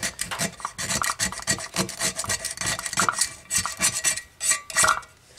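Razor knife blade scraping old foam and glue off the metal basket rim of an 8-inch EPI Model 100 woofer in quick, repeated strokes, stopping near the end. The old foam is being stripped down to bare metal so the new foam surround will glue on.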